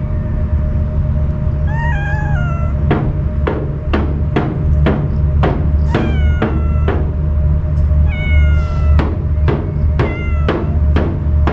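A wary stray cat meowing four times, each meow sliding down in pitch at the end. Sharp clicks come about twice a second behind the meows.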